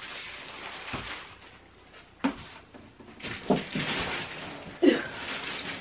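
Cardboard shipping box and plastic-wrapped packaging being handled as a boxed machine is pulled out, with rustling and several sharp thumps against the box. The thumps come about two, three and a half and five seconds in, and the last is the loudest.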